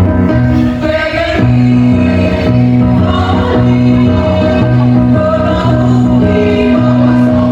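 A choir singing over music accompaniment, with held chords and a steady bass line.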